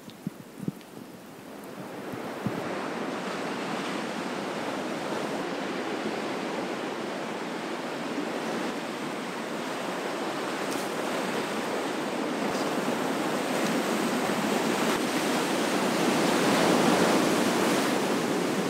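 Sea surf washing in on a rocky shore, a steady rushing that builds a couple of seconds in and grows louder toward the end, with some wind.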